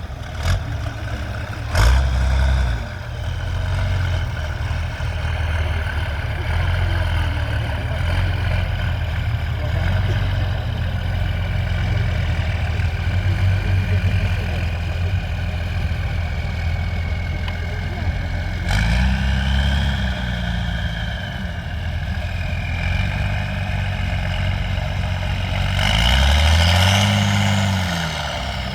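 Off-road trial truck's engine running under load, with a couple of sharp knocks near the start. The revs rise and fall twice in the second half.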